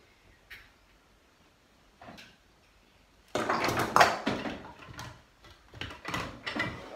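Handling noise from plastic juicer parts: a few small clicks, then a loud rattling, scraping clatter about three seconds in, and more knocks near the end as the pieces are set down and fitted on the counter.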